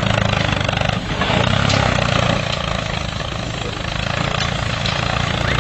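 Small DC motor and gearbox of a toy tractor running steadily under the load of a brick-laden trolley, a buzzing whir with a fast rattle.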